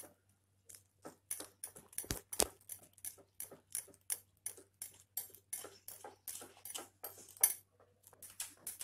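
Wire whisk beating wheat-flour batter in a glass bowl: a rapid, even run of whisk clicks, about four strokes a second, starting about a second in.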